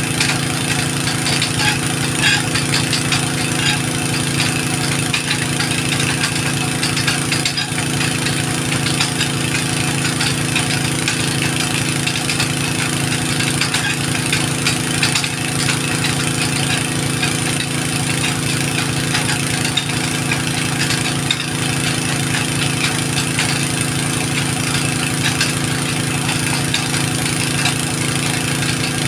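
An engine running steadily, its pitch unchanging.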